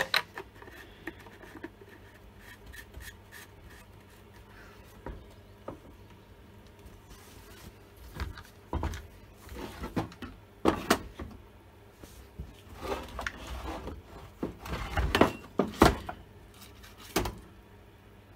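A Stihl MS170 chainsaw's plastic body being handled, turned over and set down on a wooden workbench: faint rubbing at first, then a run of knocks in the second half.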